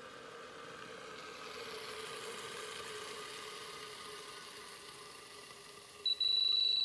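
Steady low whirring and hiss from a CRYSALYS 9500 controlled-rate freezer running at the end of its cooling ramp. About six seconds in, a loud, high-pitched, steady beep starts: the freezer's end-of-program alarm signalling that the freezing program is over.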